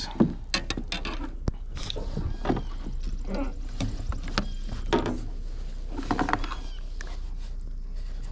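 Scattered knocks, clicks and rustles: a freshly landed crappie flops in a landing net on a kayak while hands handle the net, fish and lure. A few brief breathy voice sounds come in between.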